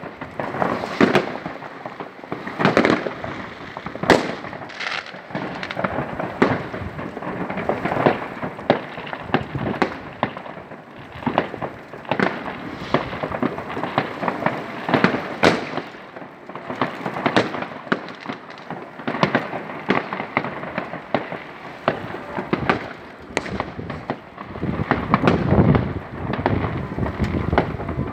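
New Year's Eve fireworks: many overlapping bangs and crackles from rockets and firecrackers, going off continuously and irregularly, with a steady rumble of distant explosions between the louder blasts.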